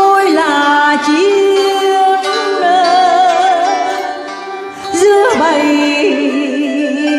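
Traditional Vietnamese instrumental music led by a plucked đàn tranh zither, its notes bent and wavering in pitch. It dips briefly just before the five-second mark, then picks up again.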